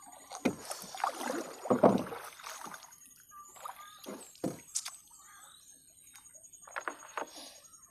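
Wet nylon gill net being hauled hand over hand into a small boat: water splashing and dripping off the net, with irregular knocks and thuds against the hull, loudest about two seconds in.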